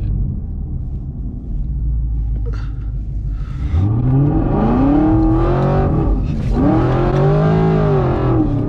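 Chevrolet Camaro SS 6.2 V8 with Kooks headers and Borla ATAK exhaust, heard from inside the cabin: a low idle rumble, then about four seconds in the revs climb under acceleration. The revs drop sharply once at an upshift, then rise again and ease off near the end.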